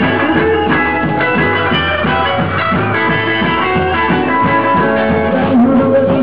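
Live rock and roll band playing a guitar-led passage without vocals, with an upright bass line running underneath.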